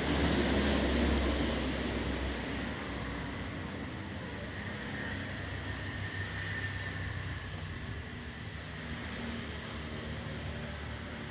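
A steady low rumbling background noise, loudest in the first two seconds or so and then easing, with a couple of faint light clicks.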